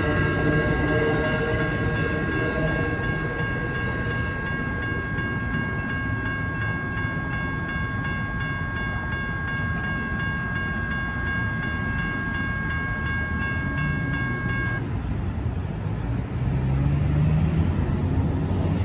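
Railroad crossing signal bell ringing steadily, over the fading rumble of the Amtrak Coast Starlight passenger train rolling away in the first few seconds. The bell stops about fifteen seconds in as the gates lift, and a pickup truck's engine rises as it drives across near the end.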